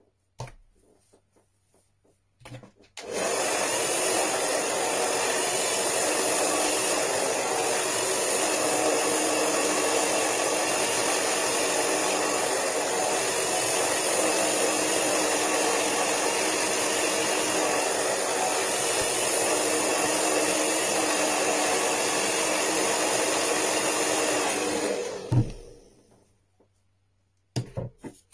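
Hand-held hair dryer switched on about three seconds in and running steadily. It is switched off a few seconds before the end and winds down over about a second.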